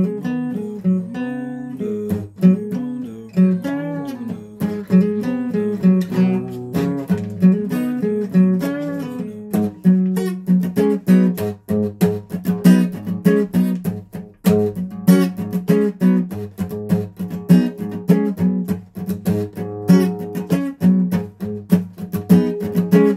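Guitar played solo with no singing: picked notes and chords, the strumming getting busier about halfway through.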